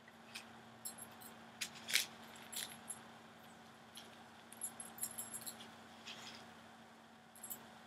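Small metal jewelry pieces clinking and jingling in the hands as a tangled necklace chain is worked loose: a scatter of light clicks, the loudest about two seconds in. A faint steady low hum runs beneath.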